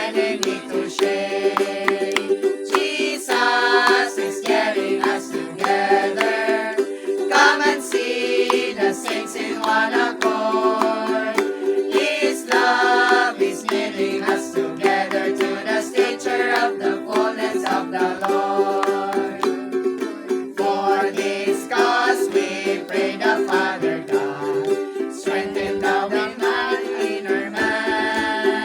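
A congregation singing a hymn together over a steady instrumental accompaniment.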